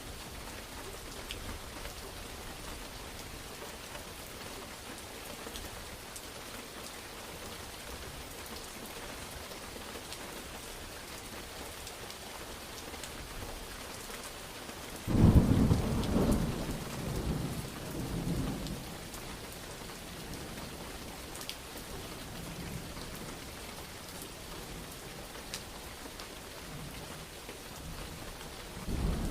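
Steady heavy rain with a sudden thunderclap about halfway through that rolls off in rumbles over several seconds, and another thunder crack starting right at the end.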